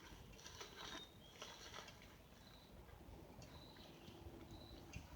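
Near silence: a few faint rubbing strokes in the first two seconds as a backhoe is wiped down by hand, then scattered faint, high, short chirps.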